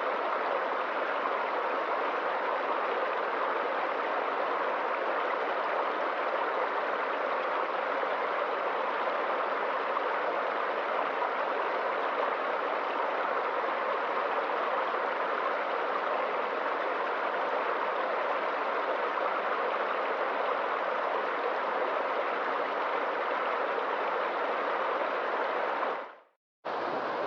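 Small stream rushing steadily over little waterfalls, an even splashing rush of water. It cuts out for a moment near the end and resumes.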